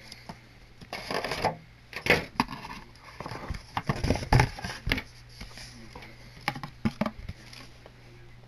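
Handling noises from trading cards and the cardboard Yu-Gi-Oh! Legendary Collection Kaiba box being picked up and moved: irregular scrapes, rustles and knocks, loudest between about two and five seconds in.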